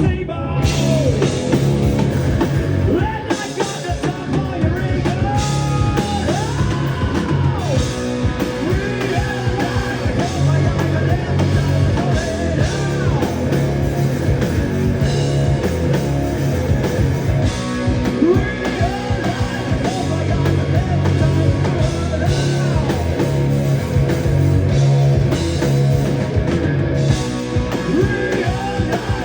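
Live rock band playing a song: a sung lead vocal over drum kit, electric guitar and a heavy bass, loud and steady.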